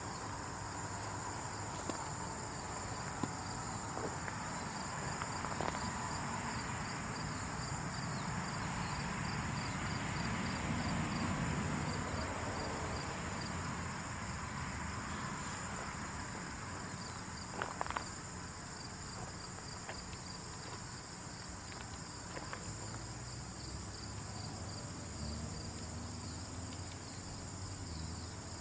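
Insect chorus: a steady high trill under a line of evenly pulsed cricket-like chirps, with a soft rustling that swells about a third of the way in and a few faint ticks.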